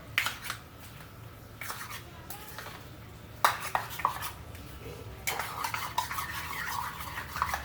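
Chicken pieces coated in a thick marinade of egg, flour and sauces being mixed in a bowl. A few sharp knocks against the bowl come first, then continuous scraping and stirring from about halfway through.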